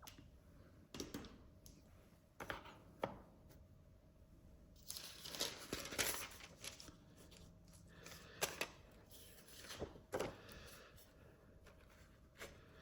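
Faint paper rustling and crinkling with a few light knocks and taps as a cigar box and its contents are handled.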